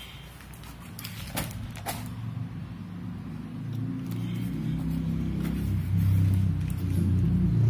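A low rumble that grows louder through the second half, with a few sharp clicks in the first two seconds.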